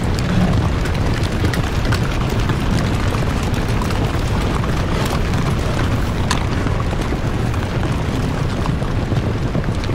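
Heavy rain pouring down in a loud, steady hiss with a deep rumble underneath, a few sharper drop hits standing out now and then.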